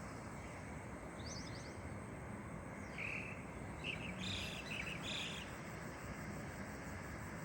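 Birds chirping in short high notes over a steady background hiss: a quick run of calls about a second in, then a cluster of chirps in the middle.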